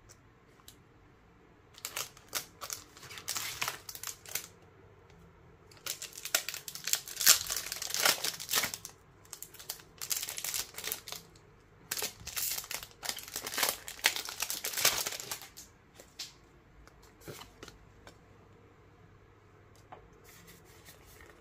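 Foil wrapper of a Pokémon TCG Brilliant Stars booster pack crinkling and tearing as it is opened by hand, in several runs of crackling with short pauses between, loudest about seven to nine seconds in. Near the end only a few faint clicks of the cards being handled.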